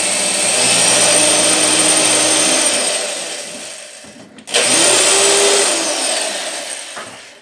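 Electric drill boring a small pilot hole through the wooden back rail of a base cabinet into a wall stud. The motor runs, winds down and stops about four seconds in, then starts again, speeds up and slows to a stop near the end.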